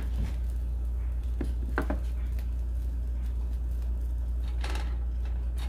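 A steady low hum under a few light clicks and scrapes of utensils against a pan as cheese is added to a tortilla.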